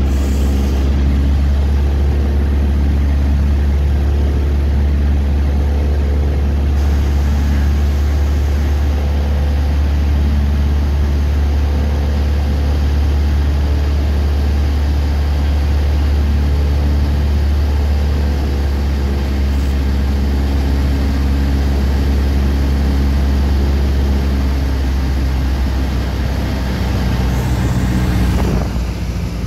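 Cessna 152's four-cylinder Lycoming O-235 engine and propeller droning steadily, heard inside the cockpit on final approach. Near the end the drone drops in level and pitch as power comes off for the landing.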